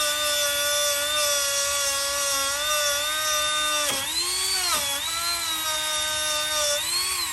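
Milwaukee M12 cordless rotary tool running at high speed against rusty metal to take the rust off; its steady whine dips in pitch twice about four seconds in as it bogs under load, and starts to wind down at the very end.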